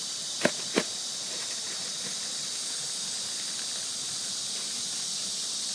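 Plastic zip-lock bag being handled, with two short crinkles about half a second in, over a steady high hiss.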